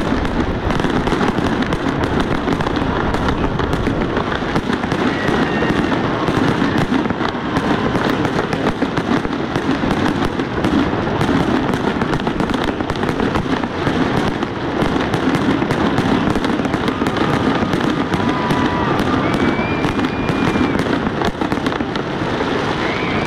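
Fireworks display at full tilt: a near-continuous barrage of rapid bangs and crackling from aerial shells and fountains.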